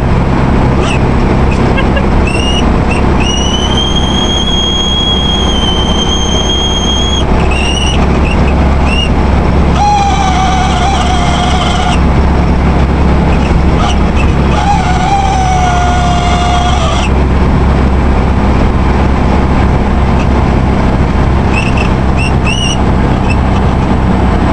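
VW Beetle speedometer screeching while driving: short squealing chirps, then a long steady high-pitched squeal, then two lower wavering squeals of a few seconds each, and more chirps near the end. Under it runs the steady drone of the car's air-cooled flat-four engine and the road.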